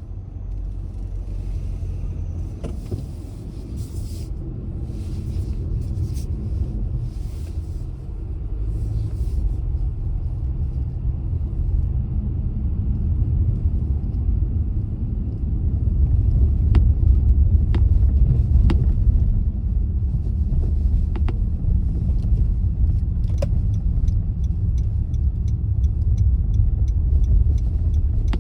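Car driving on a road, a steady low rumble of engine and tyres that grows gradually louder over the stretch, with scattered light ticks in the second half.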